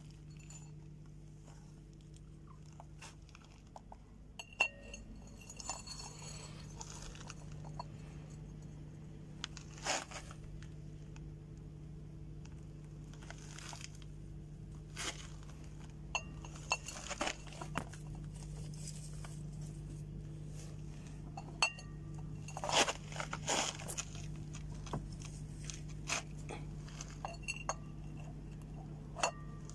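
Hen's eggs being picked up from wood-shaving litter and set down on a ceramic plate: scattered light clinks of eggshell on china and crunching rustles of the shavings, over a low steady hum.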